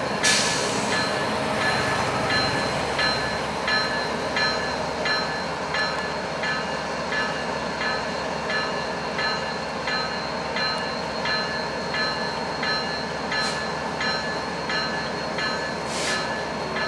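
Freight train rolling past: a steady rumble with an even clatter about every two-thirds of a second and ringing tones above it. There are two short hisses late on.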